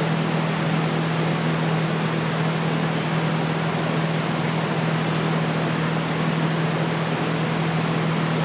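Steady airy hiss with an even low hum underneath, from a running fan or blower.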